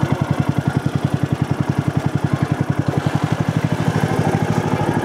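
River boat's engine running steadily, a fast, even chug of about ten beats a second.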